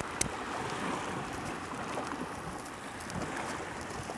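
Steady wash of surf and wind on a beach, with a few faint clicks.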